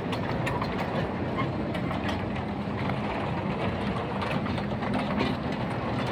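Amusement-park kiddie train running round its track: a steady hum with many small, irregular clicks and rattles from the cars and wheels.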